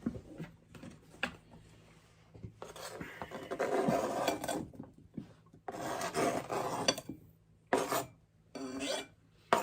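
Rasping scrapes of a kitchen utensil working food, in a few bursts of one to two seconds with short pauses between, then two shorter scrapes near the end.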